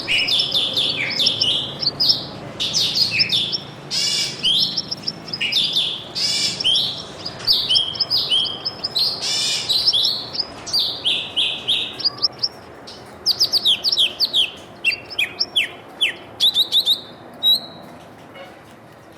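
Small songbirds chirping: a dense, fast run of short, high, falling chirps that thins out and stops a little before the end.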